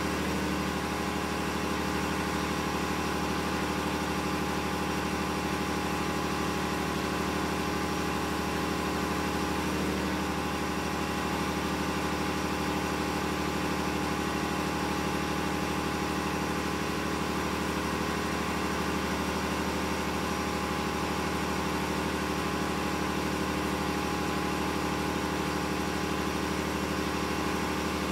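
Steady drone of running engine machinery, unchanging in pitch and loudness throughout.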